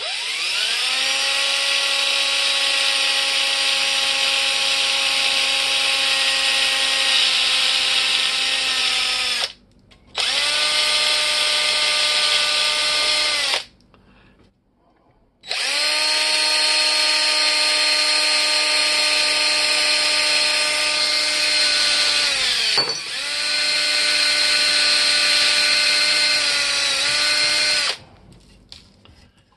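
Electric drill boring into the old wooden handle stub stuck in the socket of an antique hammer axe head, drilling out the remains of the haft. The motor whines up to speed and winds down three times: a long run, a short one, then another long one that briefly bogs down under load and recovers.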